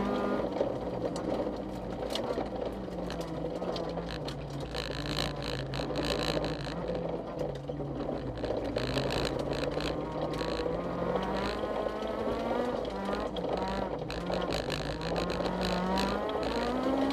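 Honda CRX rally car's engine heard from inside the cabin at speed, revving up in rising glides and dropping back at each gear change. Gravel crackles against the underside.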